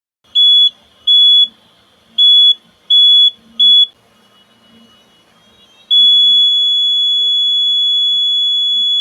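Electronic alarm buzzer of a homemade laser tripwire alarm sounding one high-pitched tone: five short, irregularly spaced beeps, then a continuous tone from about six seconds in. It sounds whenever the laser beam on the light sensor is broken.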